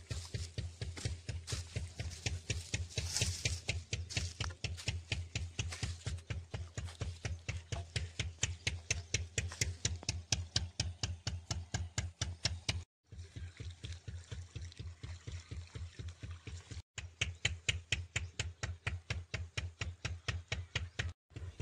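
An engine chugging steadily, with an even rapid putter of about six beats a second over a low hum. It is quieter for a few seconds in the middle.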